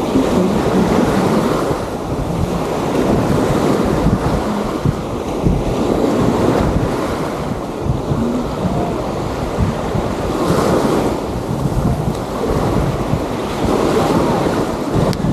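Sea waves washing onto a sandy beach, swelling and falling back every few seconds, with wind buffeting the microphone.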